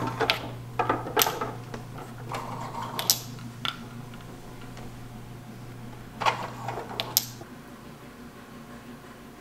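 Horizontal slatted window blinds being opened by their cord: the slats and cord clatter in a few short bursts of clicks and rattles, over a steady low hum that stops near the end.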